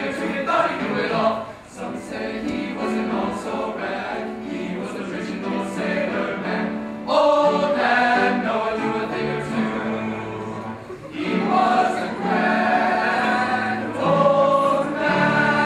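Men's choir singing a gospel song in harmony, with piano accompaniment. The singing gets louder about seven seconds in and stays loud to the close.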